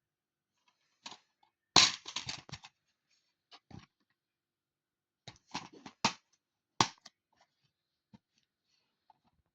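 Handling noise indoors: a few clusters of sharp clacks and knocks, loudest about two seconds in and again around six to seven seconds in.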